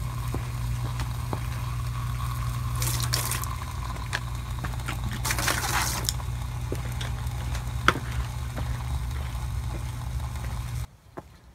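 Early-2000s RCA CRT television running with salt water on its circuit board: a steady electrical hum with scattered sharp snaps and two bursts of sizzling hiss, arcing across the wet, salted board. About eleven seconds in, the hum cuts off suddenly as the set loses power.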